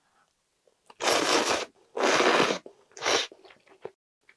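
Three loud slurps of ramen noodles out of budae-jjigae (Korean army stew) as a mouthful is sucked in, the last one shorter, with a few faint mouth clicks between.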